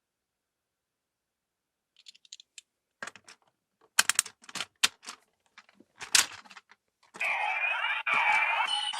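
Silence, then a run of sharp plastic clicks and snaps from a Kamen Rider transformation belt toy being handled and loaded. About seven seconds in, the toy's loud electronic sound effect starts.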